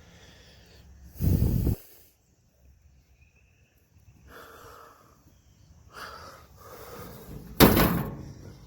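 Two short puffs of blowing air, about six seconds apart, the second one sharper.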